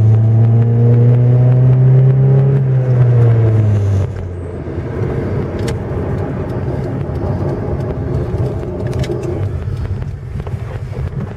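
VAZ 1.6-litre eight-valve engine with a 56 mm throttle body, heard from inside the car, droning steadily under throttle. About four seconds in the drone drops off abruptly as the throttle is released, leaving a quieter engine hum and road noise.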